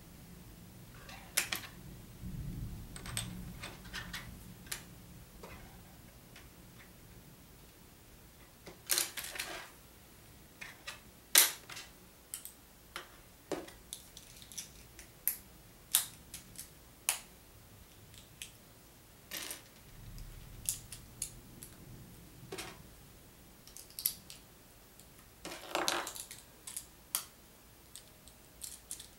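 Irregular clicks and clacks of small plastic Lego pieces being handled and pressed together, with a few short clattering rustles of pieces being sorted, the loudest about 9, 11 and 26 seconds in.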